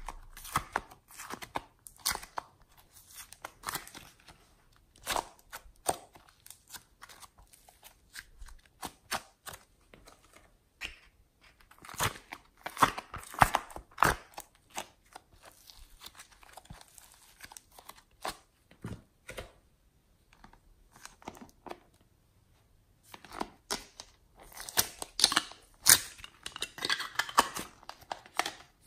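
Thin plastic containers crinkling and clicking as they are handled and squeezed open, with soft clay peeled out of them. Irregular crackles and clicks, with a quieter lull a little past the middle.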